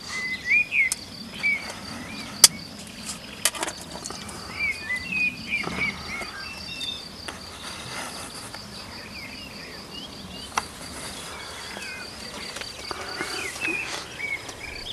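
An insect chirping in a steady, fast pulse throughout, with short curling bird chirps over it. A few sharp clicks of small tackle being handled stand out, the loudest about two and a half seconds in.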